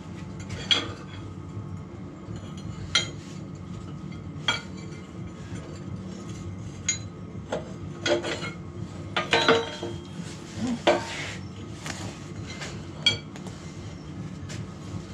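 Steel parts and tools clinking and knocking as they are handled: about ten sharp, irregular metallic strikes, the busiest stretch in the middle, over a steady low hum.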